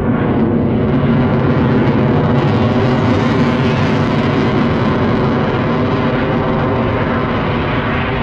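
Jet noise of an F-22 Raptor's twin turbofan engines as it flies high overhead: a loud, steady rushing rumble that grows brighter to a peak about three seconds in, then slowly dulls as the jet moves away.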